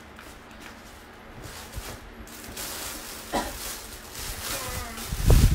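Clothes and plastic bags rustling as a pile of garments is rummaged through, with heavy low thumps near the end.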